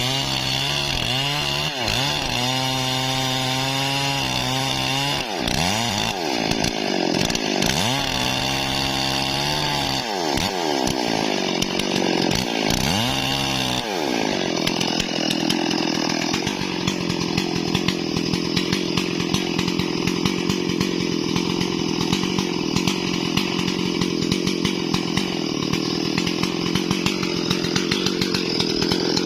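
Stihl MS 440 two-stroke chainsaw revving up and down repeatedly for about fourteen seconds, then held steadily at high speed, cutting into wood.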